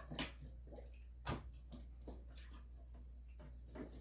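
Raw chicken pieces being washed and handled in water: scattered drips and small wet splashes, the loudest near the start and about a second in.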